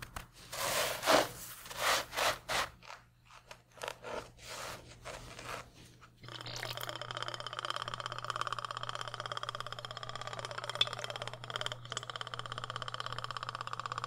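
Breadcrumbs crunching and scraping in a series of strokes as hands roll and press a chickpea ball in them. About six seconds in, this gives way to a steady trickle of cooking oil poured in a thin stream into a frying pan.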